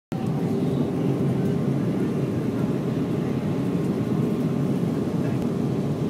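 Steady cabin noise of a jet airliner in flight, the engines and rushing airflow heard from a window seat as an even, low drone.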